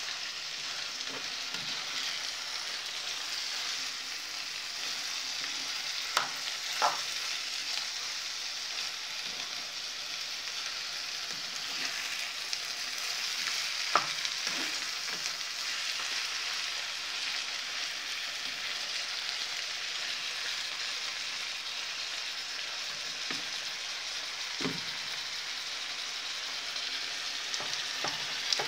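Chicken wing pieces and onions sizzling steadily in a frying pan while being stirred with a cooking spoon, with a few sharp knocks of the spoon against the pan.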